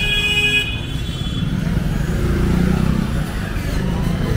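Street traffic in a busy market road: a steady rumble of passing vehicle engines, with a vehicle horn held for about two seconds at the start that cuts off about a second and a half in.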